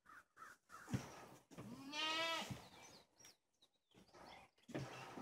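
A goat bleats once, a single call of under a second about two seconds in, shortly after a thump.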